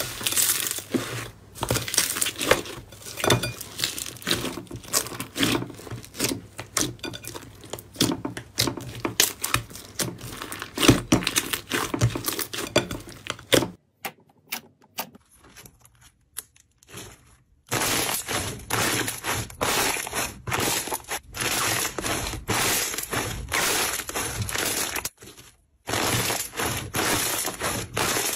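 Hands squeezing and pressing slime, giving a dense run of sticky pops and crackling clicks. About 14 s in the sound drops to a few faint clicks for several seconds. Then it returns as a thick, steady crackle as a clear orange slime is pressed flat.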